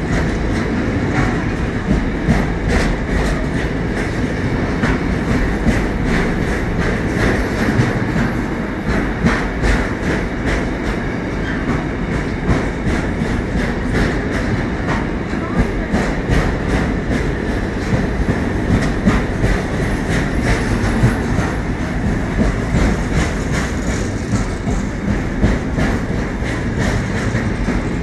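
Container freight train's wagons rolling steadily past at the platform edge: a continuous wheel rumble with frequent clicks and clacks over the rail joints.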